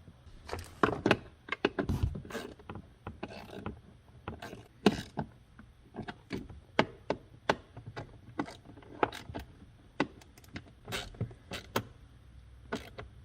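Irregular clicks and light knocks of hand tools and plastic and metal parts being handled while the new blower motor resistor-and-relay unit is fitted and its two small bolts are tightened.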